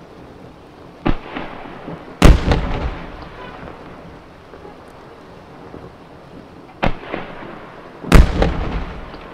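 Large aerial firework shells bursting: four booms in two pairs, the second and louder of each pair about a second after the first, each trailing off in a rolling rumble of echo.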